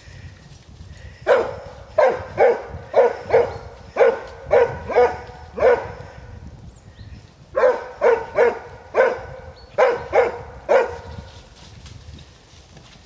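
Plott hound bay barking at a wild boar, holding it at bay. The barks come in two runs of about two a second, about nine and then about seven, with a pause of under two seconds between them.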